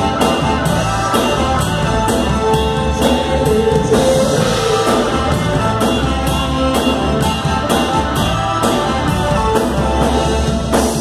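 Live rock band playing: electric guitar, bass guitar and drum kit with a steady beat.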